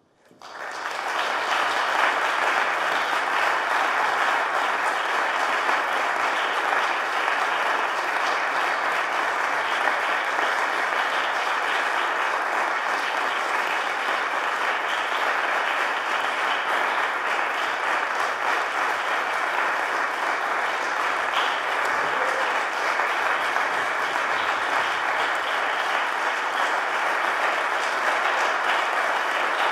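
Audience applauding, breaking out suddenly and swelling to full strength within a second or two, then holding steady.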